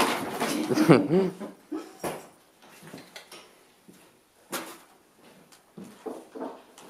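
Brown paper bag crinkling and rustling loudly as a cat leaps into it and thrashes about, followed by scattered lighter rustles and crackles of paper. A short wavering voice-like sound comes about a second in.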